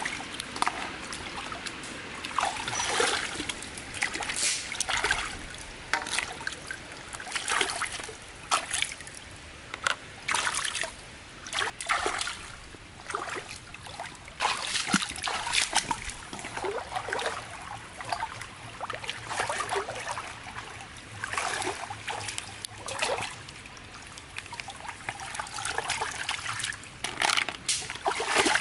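Hands splashing and sloshing in shallow muddy stream water while gathering freshwater snails, with irregular splashes and trickles every second or so over a steady water sound.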